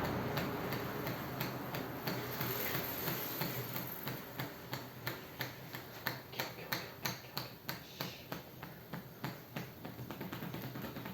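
Hands striking a person's head in a percussive tapping head massage: a steady run of quick light taps, about three or four a second.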